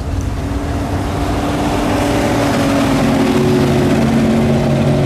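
The 1970 Dodge Hemi Challenger's 426 Hemi V8 running as the car approaches and drives past. It grows louder as the car nears, and its pitch drops a little as it goes by near the end.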